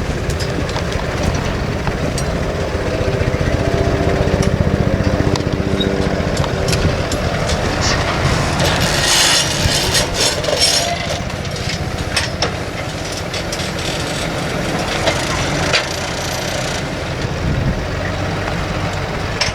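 Tractor engine running steadily while working a plough, with a cluster of sharp clicks and cracks near the middle.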